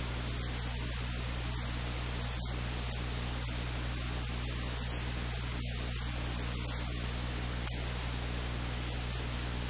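Steady, even hiss with a low electrical mains hum underneath. No handling or kitchen sound stands out from it.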